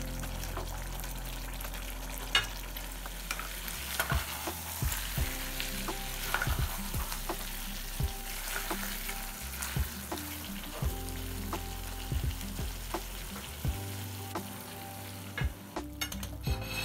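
Thick mutton and potato curry sizzling in an aluminium kadhai while a wooden spatula stirs and scrapes through it, with frequent short knocks of the spatula against the pan.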